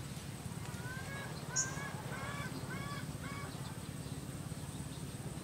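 A bird calling: a run of about six short, arching notes over roughly two seconds, over a steady low rumble.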